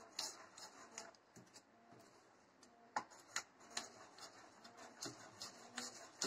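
A spoon stirring thick appam batter in a bowl: faint, irregular clicks and scrapes of the spoon against the bowl, a few a second.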